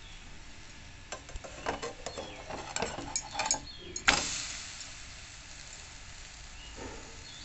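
A spatula knocking and scraping on a nonstick frying pan as a paratha is turned. About four seconds in comes a sudden burst of sizzling, as the paratha meets the hot, oiled pan, which fades over the next second or two.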